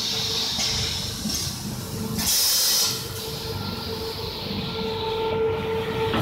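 Paper-pulp egg tray forming machine running with a steady hum and low mechanical rumble. A short burst of air hiss comes under a second in, and a louder hiss lasting under a second comes a little over two seconds in.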